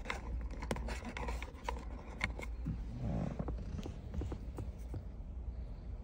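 Light handling clicks and rustles as small spare ignition lock wafers are picked up, over a steady low hum.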